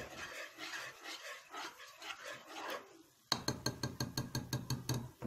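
A wire whisk stirring a thick ghee-and-flour roux in a metal pot, scraping softly, then about a second past the halfway point a fast run of clinks, roughly six a second, as the whisk beats against the pot.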